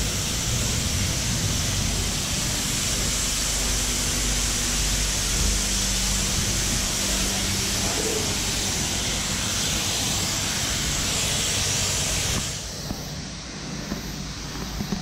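High-pressure car-wash lance spraying water onto a car: a loud, steady hiss of spray. About twelve and a half seconds in it drops abruptly to a quieter, duller sound.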